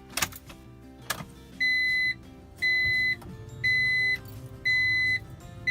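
Car warning chime beeping, a steady high tone about half a second long repeating once a second, about five times, after two sharp clicks.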